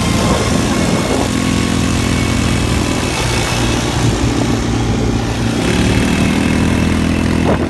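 Quad bike (ATV) engine running under way, its pitch rising and falling a little as the throttle changes, with wind rushing over the microphone.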